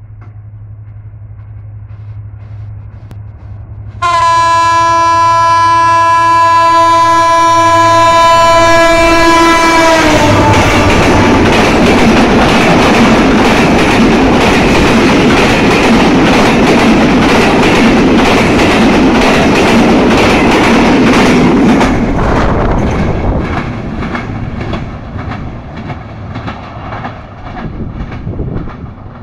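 American-built diesel locomotive hauling an express passenger train past at speed. A low engine hum is heard as it approaches; about four seconds in the horn starts suddenly and sounds loud and long for about six seconds, its pitch dipping as the locomotive passes. Then the coaches rush by with a rhythmic clickety-clack of wheels over rail joints, fading away over the last several seconds.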